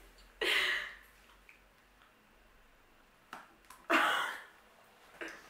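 A short breathy burst near the start, then a few small clicks and a louder crunch about four seconds in as a piece of crunchy coconut chocolate is bitten into.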